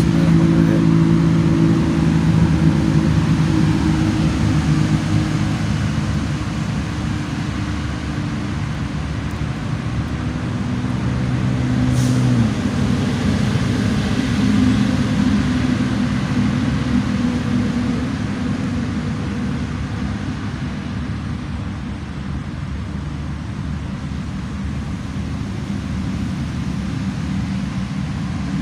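A motor engine running steadily, its low hum shifting in pitch a couple of times, with a single sharp tick about twelve seconds in.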